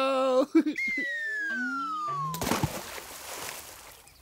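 A wavering voice crying out at the start, then a long falling whistle with a run of descending notes as the handbag drops, ending in a splash about two and a half seconds in as it lands in a puddle, which then fades away.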